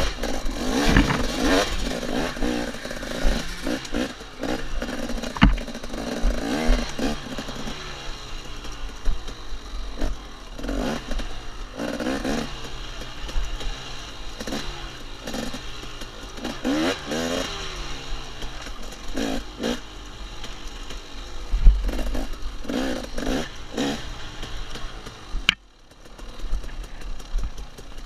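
KTM 250 XC two-stroke dirt bike engine revving up and down hard as the bike is ridden over a very rough woods trail, with knocks and clatter from the bike. The sound drops out briefly for about half a second near the end.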